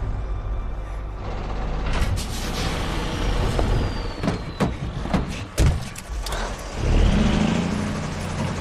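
Film soundtrack of a Kenworth W900 semi-truck: a low engine rumble, then a run of sharp bangs and crashes from about two seconds in, with a loud rush of noise near the end.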